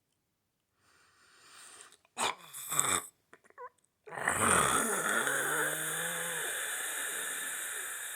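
A man snoring: a rasping breath and a loud snort, then about four seconds in a sudden, much louder drawn-out rasping snore that goes on to the end.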